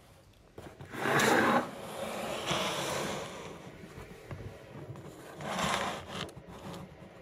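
Cardboard box being handled and slid on a tabletop: several scraping, rubbing noises, the loudest about a second in and another near six seconds.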